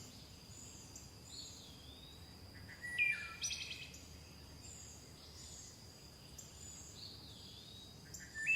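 Wild birds singing faintly: repeated short, high chirps that slide downward, with a louder call about three seconds in and another burst of calls near the end.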